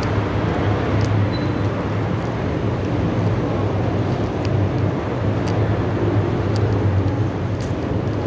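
Steady low rumble of city traffic, with a few faint ticks.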